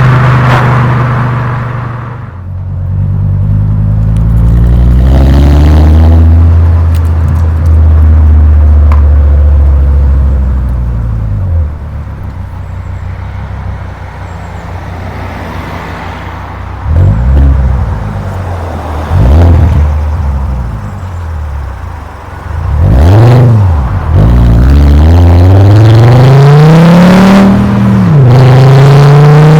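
Volkswagen Golf Mk4 VR5 five-cylinder engine's exhaust heard close at the tailpipe while driving. It revs up and holds high, drops to a quieter low run with a few short rises in revs, then climbs strongly again, with brief dips between gears.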